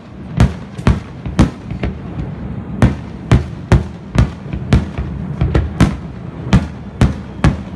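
Aerial firework shells bursting in a quick, irregular series of sharp bangs, about two a second, with a short pause about a second and a half in.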